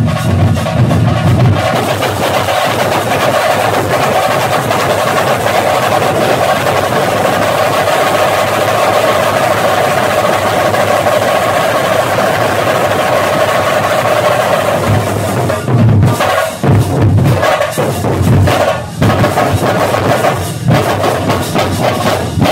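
An ensemble of Tamil parai frame drums and a slung barrel drum, beaten with sticks, plays loudly. For most of the time the strokes run together into a fast, continuous roll; near the end this breaks into separate heavy beats.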